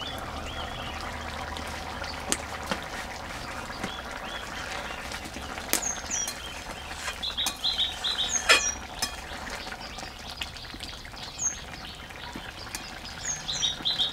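Small birds chirping in short repeated notes, with a couple of sharp metallic clinks from a spatula against the metal cooking pan as the simmering dal is stirred.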